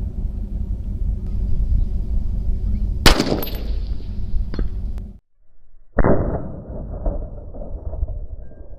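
A single shot from an AR-15 rifle chambered in 6mm ARC about three seconds in, sharp with a ringing tail, over a steady low rumble of wind. A faint tick follows a second and a half later. After a brief dropout, a second loud bang comes at about six seconds and fades away.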